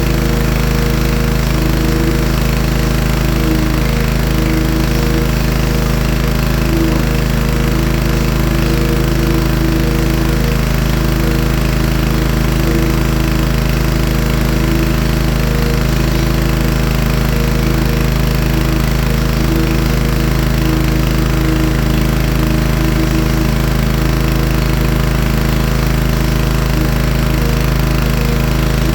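Pressure washer running steadily while it sprays water, an unchanging engine-and-spray noise with no letup.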